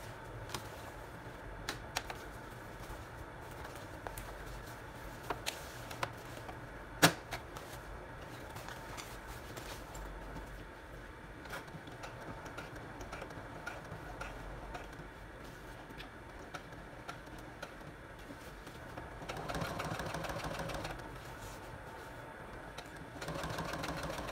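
Leather being shifted and handled, with scattered clicks and one sharp click about seven seconds in. Then a Brother Project Runway sewing machine stitches in two short bursts, each about a second and a half long, the second near the end, sewing a patch onto a leather vest.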